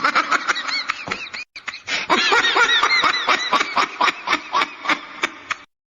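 A comedic meme sound effect: a rapid run of short, high calls, each rising and falling in pitch, about five a second. It breaks off briefly about a second and a half in, then carries on and stops shortly before the end.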